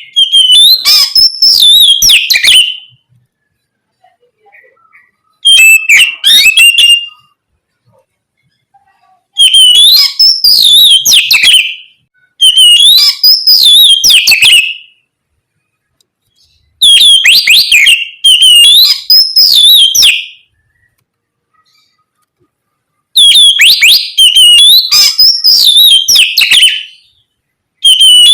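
Oriental magpie-robin (kacer) singing in loud bursts of a few seconds each: rapid whistled phrases that rise and fall, separated by short silent pauses.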